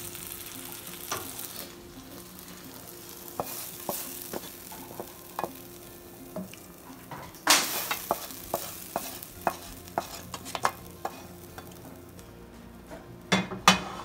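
Spoon scraping cooked masala into an aluminium pressure cooker and stirring it in with the vegetables: scattered clinks and scrapes against the metal pot, with a louder scrape about seven and a half seconds in and a burst of knocks near the end.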